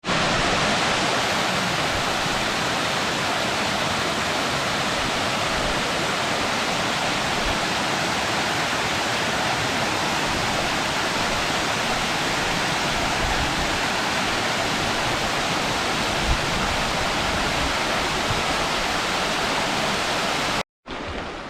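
Waterfall cascading down a creek: a steady, loud rush of falling water that cuts off abruptly near the end.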